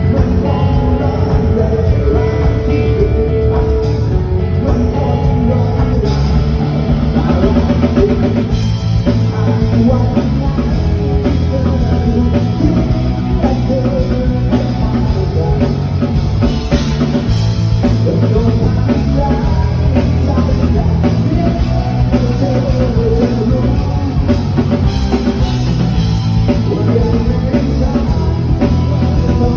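Rock band playing a song: drum kit keeping a steady beat under bass and guitar.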